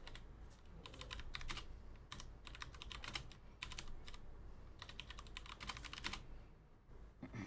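Typing on a computer keyboard: quick runs of keystrokes in several short bursts, with brief pauses between them.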